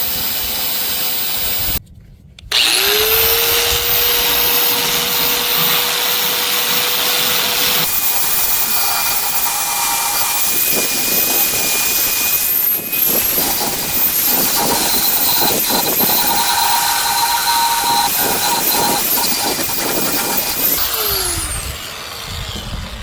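Bauer Bandfile belt sander running. It cuts out about two seconds in, spins back up with a rising whine, then rasps unevenly against a workpiece from about eight seconds in, and winds down near the end.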